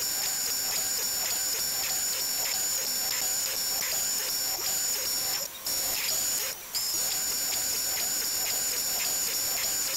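DeWalt router spindle on a Shapeoko 3 CNC running with a steady high whine while a 1/8 inch bit routes out a wood project box on its first pass. The sound drops out briefly twice, a little past halfway.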